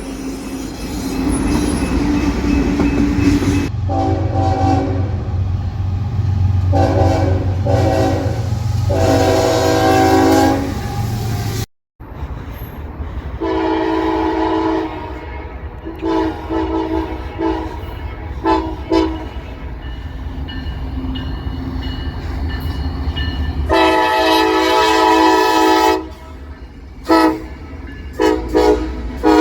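Locomotive air horns sounding a series of long and short blasts, each a chord of several notes, over the low rumble of a passing train. There are two separate recordings, with a brief silent cut about twelve seconds in; the second has a run of quick short toots.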